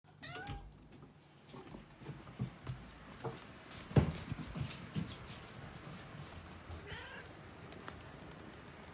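Domestic cat meowing, a short call near the start and another about seven seconds in. There are a few soft knocks in between, and a sharp knock about four seconds in is the loudest sound.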